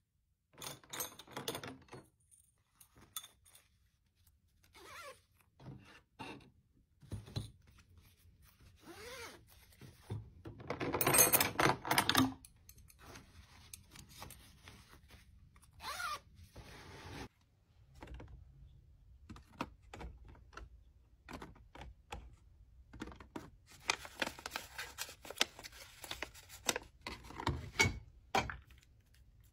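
Close handling of a fabric zipper pouch with a waterproof liner and small items in a plastic basket: scattered rustles, taps and light clicks. The loudest sound is a long rasp a little before halfway, the pouch's zipper being pulled.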